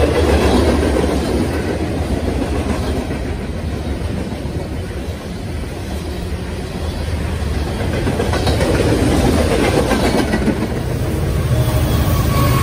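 Long freight train's cars rolling past, steel wheels rumbling and clattering on the rails. Near the end, the rear pair of Norfolk Southern diesel locomotives (distributed power units) arrives, adding a deeper engine rumble.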